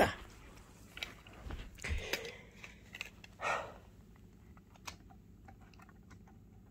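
Faint handling noises of a model railroad freight car: rustling, then small plastic clicks as the car is set onto the track and pushed up against another car to couple.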